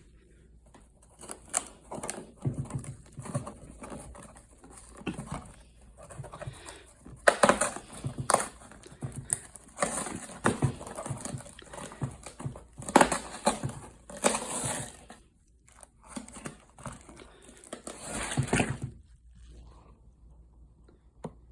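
Popsicle packaging being torn open and handled, with crinkling and tearing in irregular bursts, the loudest about a third of the way in and again past the middle.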